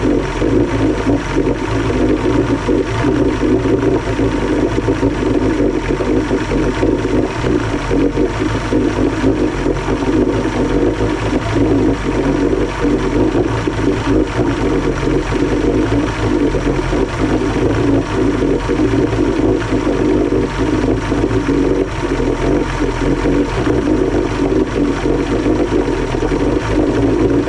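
1976 Johnson 135 hp two-stroke outboard motor running steadily at a constant speed during a Seafoam fuel-system treatment.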